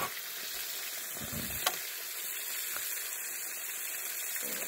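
Fish frying in oil in a pan on a portable gas camping stove, sizzling steadily. Two sharp clicks, one at the start and one under two seconds in.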